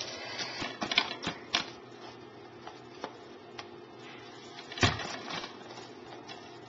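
Plastic DVD case being handled and turned over on a wooden table: a scatter of light clicks and taps, with one louder knock about five seconds in.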